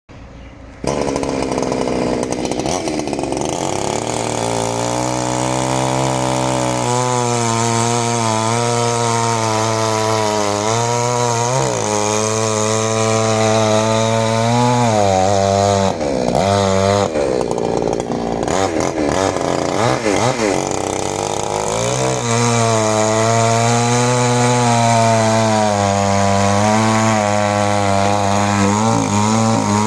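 Two-stroke petrol chainsaw cutting through a large log, starting about a second in and running at high revs. Engine speed dips and recovers several times around the middle as the chain works through the wood, then holds steady again.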